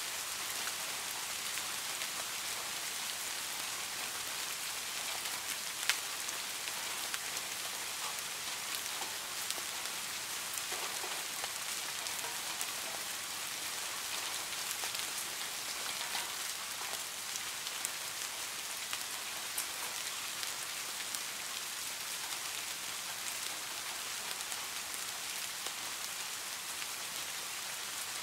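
Steady rain falling, an even high hiss with many small scattered drop ticks and one sharper tick about six seconds in.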